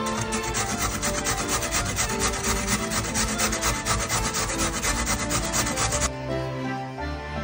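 Raw beet being grated on a stainless steel box grater: quick, rhythmic rasping strokes that stop about six seconds in.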